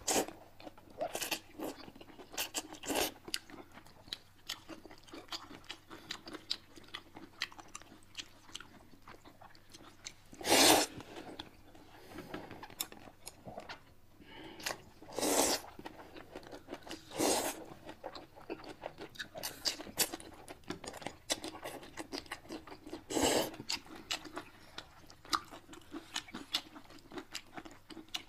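Close-up eating sounds: steady crunching and chewing of crispy deep-fried fish, broken by four loud slurps of noodles, the loudest a little over a third of the way in.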